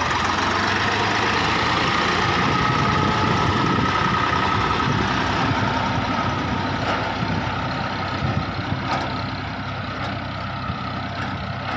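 Kirloskar tractor's diesel engine running steadily while pulling a row cultivator through a field. The sound eases off a little near the end as the tractor draws away.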